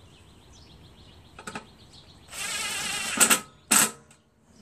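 Cordless drill driving a bolt into the lawn mower engine's housing: the motor runs steadily for about a second, then gives two short, louder bursts as the fastener is snugged down.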